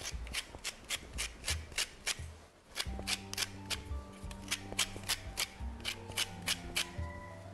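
Orange peel being grated on a small metal hand grater over a steel bowl, in quick rasping strokes about four a second, with a brief pause partway through. Background music comes in about three seconds in.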